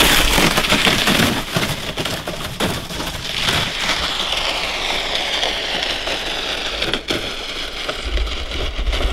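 A loaded plastic ice-fishing sled scraping and hissing as it slides down a snowy bank and out across the lake ice. It crunches and knocks over the snow at first, then gives a steady hiss that slowly falls in pitch, with a low rumble near the end.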